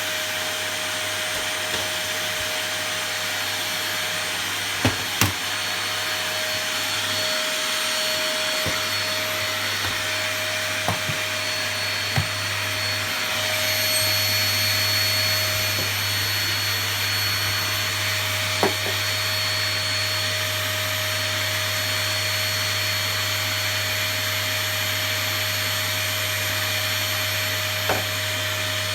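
Cheap "Epic" vacuum cleaner running steadily, with a steady motor hum under its rushing noise. A few short sharp knocks break in, two close together about five seconds in.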